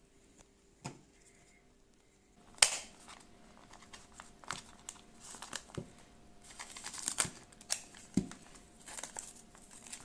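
Plastic packaging pouch crinkling and rustling as hands handle and open it, starting with a sharp crackle about two and a half seconds in; a soft thump comes about a second in.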